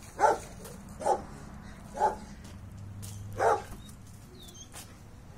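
A dog barking: four single barks about a second apart, the last after a slightly longer pause, in territorial reaction to a strange dog at the gate.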